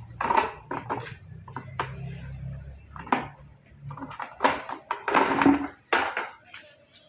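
Irregular clattering knocks and scrapes, several of them sharp and loud, with a low hum under the first few seconds.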